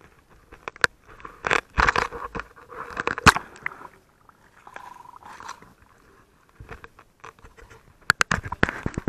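Handling noise from a handheld camera: scraping, rustling and sharp knocks as it rubs against clothing, heaviest in the first few seconds and again near the end.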